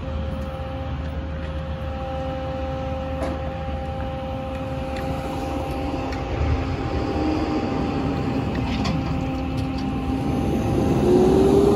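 Hydraulic knuckle-boom crane running with a steady hum and whine as it hoists a metal boat-lift frame. The whine rises in pitch near the end, and there are a few faint metal clinks.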